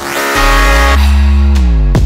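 Electronic dance music with a heavy bass line whose notes glide in pitch, down and back up.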